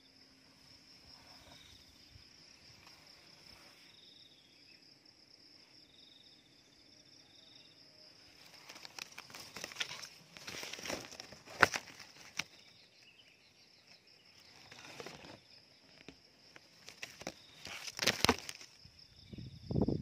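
Mango leaves and twigs rustling and scraping against a camera on a bamboo pole as it is drawn down through the tree, in bursts of crackling from about eight seconds in, with one sharp knock near the middle. Underneath runs a steady high-pitched insect drone.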